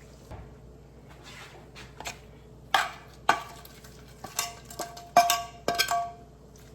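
Kitchen utensils and cookware clinking: a few sharp knocks with short ringing, coming thicker in the second half.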